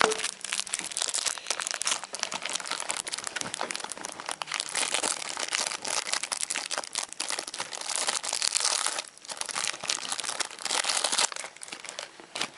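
Packaging crinkling and crackling as it is torn open and pulled off a portable media player by hand, with a short pause about nine seconds in.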